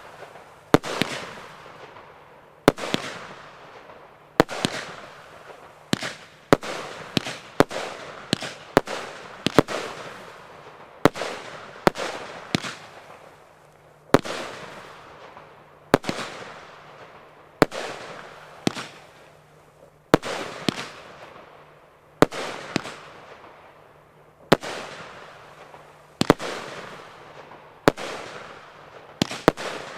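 Ammo Crate firework cake firing shot after shot, about one to two bangs a second and sometimes in quick clusters. Each sharp bang trails off over about a second.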